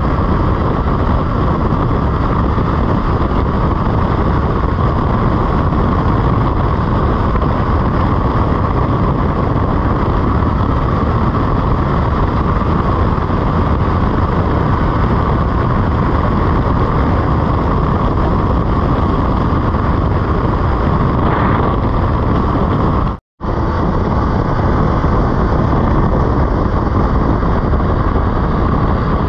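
BMW F 850 GS motorcycle under way: steady wind rush mixed with the engine's running, with no gear changes or revving standing out. The sound cuts out for a split second about 23 seconds in.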